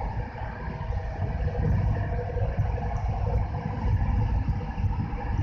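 Steady low rumble of a moving passenger train heard from inside the carriage, with a faint steady hum over it.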